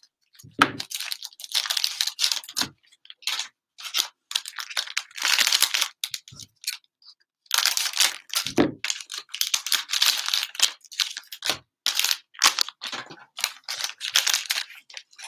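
Plastic cellophane wrappers of Mosaic football cello packs crinkling and tearing as they are handled and opened by hand, in irregular bursts with short gaps.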